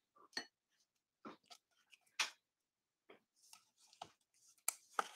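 Faint, scattered clicks and rustles of glossy trading cards being handled and shuffled, about ten brief ticks spread over a few seconds.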